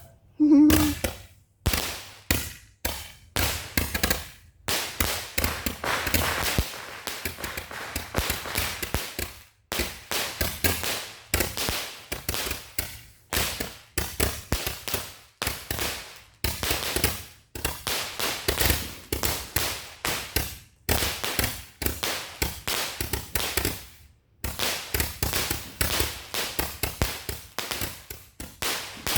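Firecrackers going off in a long, irregular string of sharp pops and bangs, several a second, with a hiss around five to seven seconds in and brief pauses near ten and twenty-four seconds.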